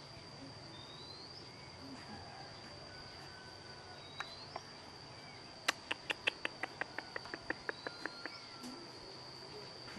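Insects keeping up a steady high shrill, with a short rising chirp every few seconds. Past the middle comes a run of about fifteen sharp clicks, about six a second, fading away.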